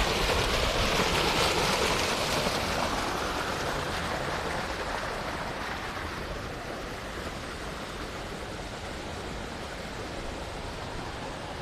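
Thermal spring water gushing from a spout in a stone wall into a pool: a steady rushing splash, loudest in the first few seconds, then fading gradually to a softer wash of water.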